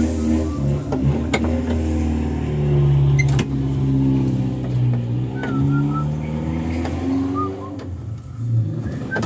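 Electrolux LTE 12 washing machine motor running, its hum rising and falling in pitch as it changes speed. The motor is noisy, which is why it is being replaced.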